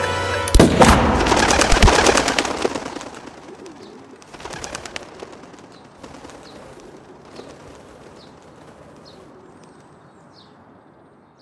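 A single gunshot cracks about half a second in, and a flock of birds takes flight at once: a dense burst of wing flapping that fades, followed by scattered faint bird chirps.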